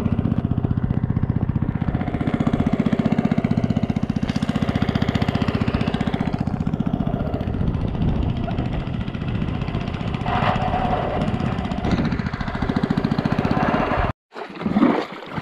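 Small boat engine running steadily, with a fast, even pulsing; it cuts off abruptly near the end.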